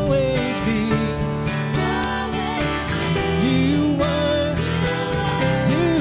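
Live worship band playing a steady song on acoustic guitars and keyboard, with a voice singing a gliding melody over it.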